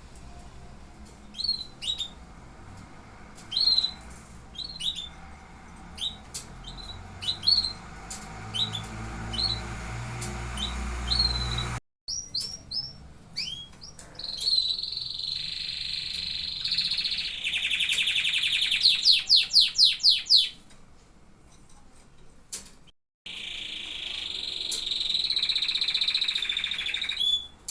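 Domestic canaries calling and singing. First come short rising chirps about once a second over a low hum. After a break come long rolling trills, with a fast run of loud repeated notes in the middle, then another sustained trilled phrase near the end.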